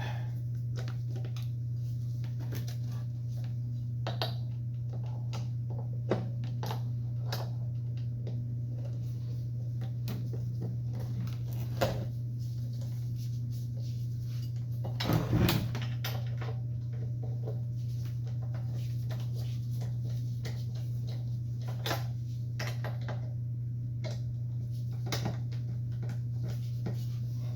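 Scattered metallic clicks and knocks of hand tools working the adjustment bolts on a chop saw as they are loosened, with a short cluster of louder knocks about halfway through. A steady low hum runs underneath.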